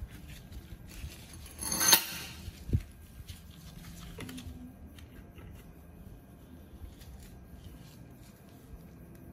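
Rusty metal scraping and clinking as the drive belt and rear clutch pulley of an old Honda Pal scooter are worked loose and lifted out of the transmission case. A loud scraping rattle about two seconds in is followed by a single knock, then faint clicks of handling.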